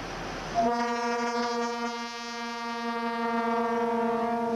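Air horn of a Soviet-built ST44 (M62) diesel locomotive sounding one long, steady blast at a single pitch, starting about half a second in and held to the end, over the rumble of the passing freight train.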